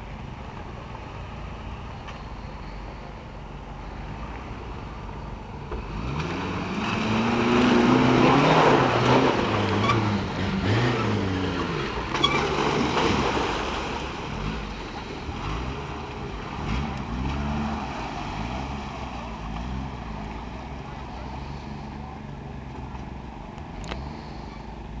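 Suzuki SJ410's small three-cylinder petrol engine working hard off road, revved up and down again and again as the 4x4 climbs a muddy bank. It is loudest from about a quarter of the way in to about halfway, with a rushing noise from the tyres churning wet ground.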